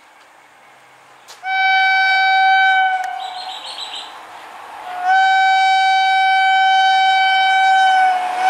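WAP-7 electric locomotive's horn sounding two long blasts as the train approaches: the first starts about a second and a half in and lasts about two seconds, the second starts about five seconds in and is held on.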